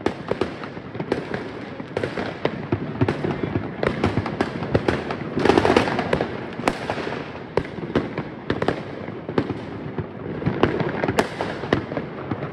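New Year's fireworks and firecrackers going off all around: a dense, irregular barrage of bangs and crackling, heaviest about five to six seconds in.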